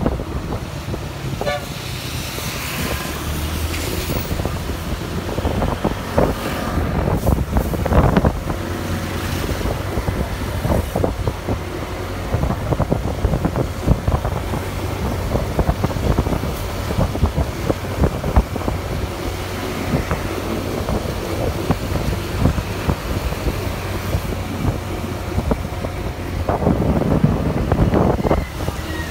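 Riding a motorcycle along a wet road: the steady low drone of the engine and road noise, with wind buffeting the microphone in irregular crackling bursts.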